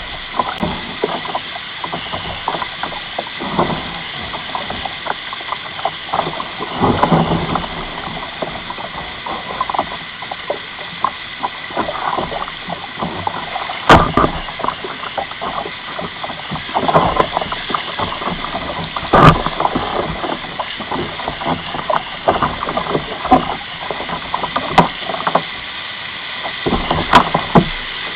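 River whitewater rapids rushing steadily around a kayak running through them, with a few short sharp knocks and splashes standing out now and then.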